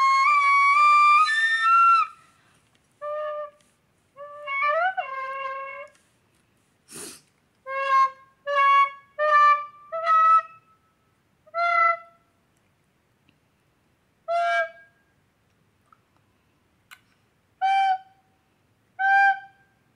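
Plastic soprano recorder playing: a long high note first, then about a dozen short separate notes with pauses between them, moving between high and low notes an octave apart. A sharp click about seven seconds in.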